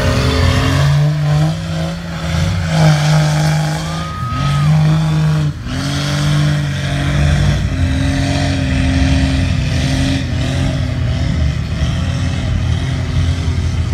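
Diesel engine of a lifted mega truck on huge paddle-lug tires revving hard under load in deep mud. Its pitch holds at a few steady levels with brief breaks where the throttle drops. Mud and water spray from the tires underneath.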